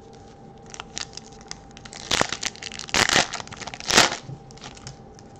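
Foil Topps Chrome trading-card pack crinkling and tearing open in the hands, with small crackles and three louder rips about two, three and four seconds in.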